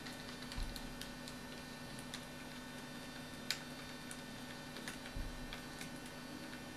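Faint, scattered clicks and taps of a hex driver and small metal parts as an electric motor is bolted into a model helicopter's frame, over a steady low hum.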